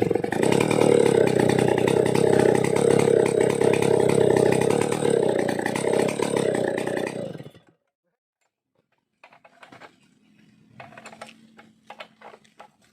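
Vintage Stihl 070AV two-stroke chainsaw engine running at a steady speed, then stopping abruptly about seven and a half seconds in. Faint clicks and clatter follow near the end.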